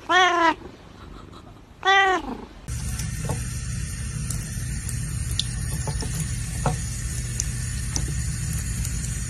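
A domestic cat meows twice, each meow rising and then falling in pitch. About three seconds in it gives way abruptly to a steady low hum with faint scattered ticks.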